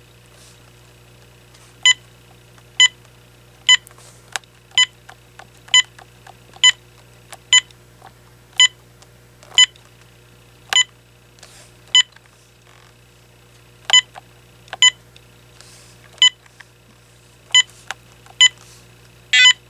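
Short electronic key-press beeps from an AT&T 7720 cordless phone's buttons, about seventeen of them at roughly one a second, with a quicker burst of beeps near the end, over a low steady hum.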